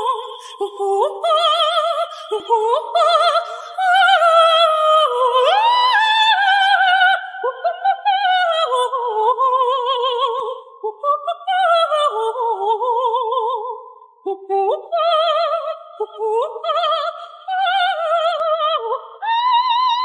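A male singer's very high wordless vocalise on 'ah', moving through fast runs and sweeping upward slides with a quick, wide vibrato and no accompaniment heard. Near the end he settles into one long held note.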